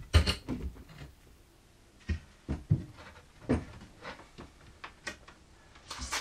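Irregular knocks and clunks as a pine board and a cordless drill are handled and shifted on a wooden workbench, with no drill running.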